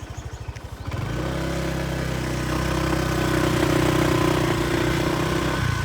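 Motorbike engine idling with a fast even pulse, then opening up about a second in and pulling away under steady throttle; it eases off near the end.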